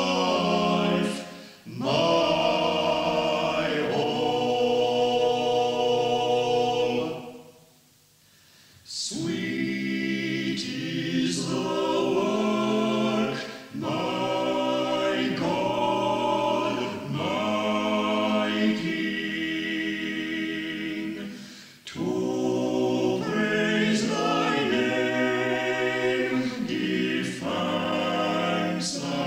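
Amateur choir singing unaccompanied, a cappella, in sustained phrases with a brief silence about eight seconds in, from an old reel-to-reel tape recording.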